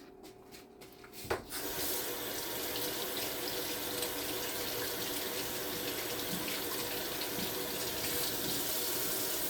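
A few light clicks, a knock about a second and a half in, then a kitchen tap running steadily into a sink.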